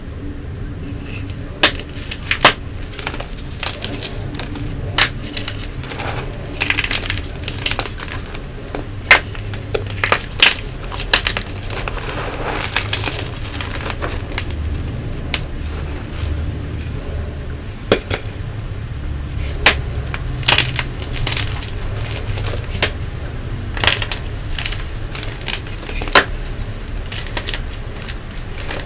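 Blocks of Nexo chalk crushed and crumbled by hand, with many irregular, sharp, crisp crunches as pieces snap and break apart.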